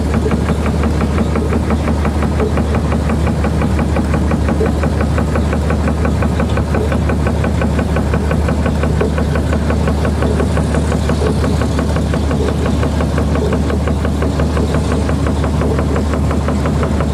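Dark ambient music: a dense, machine-like drone over a deep steady hum, pulsing rapidly and evenly like an idling engine.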